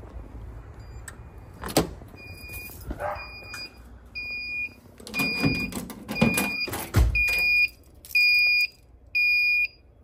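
Fire alarm control panel's built-in buzzer beeping about once a second in a high, steady tone, growing louder. It signals an active fire alarm and supervisory condition that has not yet been acknowledged. The beeping starts about two seconds in, just after a sharp click, and a few dull thumps come midway.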